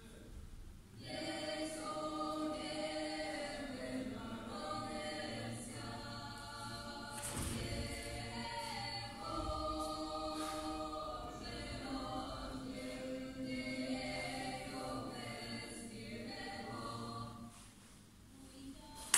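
Choral music: several voices singing long held chords that change every second or two, starting about a second in and fading shortly before the end, followed by a single sharp knock at the very end.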